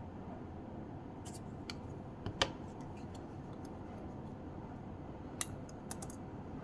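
A handful of small sharp clicks and taps from handling a camera and its battery, the loudest about two and a half seconds in, over a steady low background hiss.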